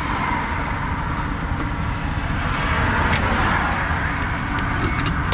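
Highway traffic going past on the interstate: a steady rush of tyre and engine noise that swells slightly as vehicles pass a couple of seconds in, with a few light clicks near the end.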